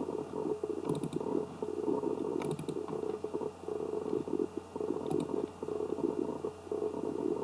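A few sharp computer-mouse clicks, about a second in, around two and a half seconds in and past the five-second mark, over a constant low, grainy background noise with a faint hum.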